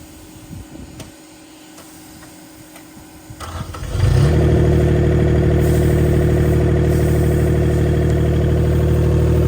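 Skid steer engine cranked over and starting about four seconds in, then running steadily. Before that, a few light clicks.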